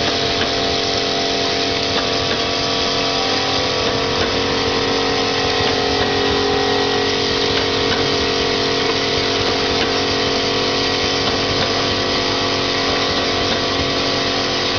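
Vial filling, stoppering and capping machine running: a steady mechanical hum with several held tones over a constant rattling hiss.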